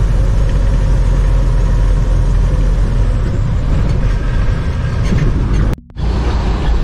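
Steady low rumble of a moving motor vehicle heard from inside the cabin: engine and road noise. It drops out for a moment near the end.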